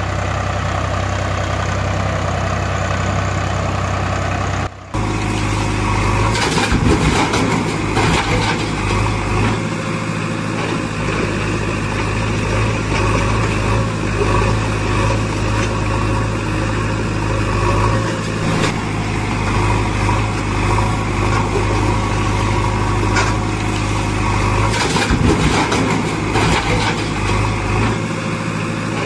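Diesel engine sound running steadily, the kind laid over toy tractor play; it cuts out briefly about five seconds in and then runs on.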